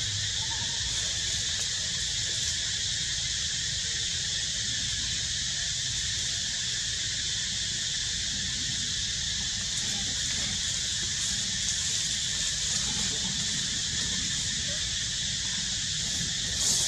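Steady, high-pitched chorus of insects droning on unchanged, over a low background rumble.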